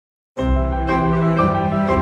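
Background music that starts suddenly just after the beginning: a gentle tune over a low steady bass, changing notes about every half second.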